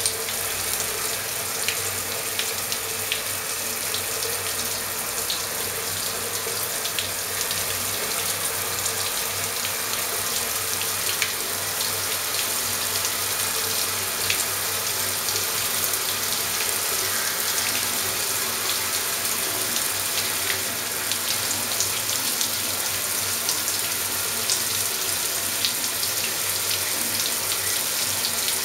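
Water spraying steadily from a shower head and splashing, a continuous hiss with scattered small droplet ticks.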